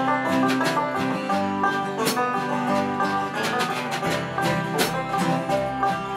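Acoustic guitar and upright bass playing the instrumental intro of a country song, with steady plucked and strummed notes over a low bass line.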